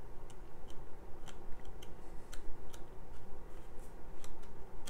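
Pages of a paper booklet being leafed through by hand: light, irregular paper ticks and rustles.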